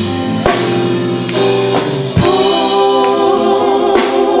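Live gospel music: voices singing held notes together over a band with drum kit and guitar, with steady drum hits.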